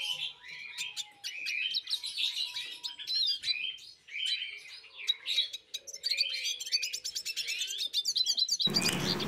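Small birds chirping in quick, repeated short calls.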